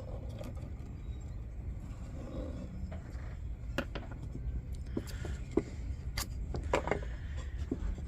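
Scattered light clicks and taps from wooden templates, blanks and a marker being handled on a workbench while blanks are laid out, over a steady low hum.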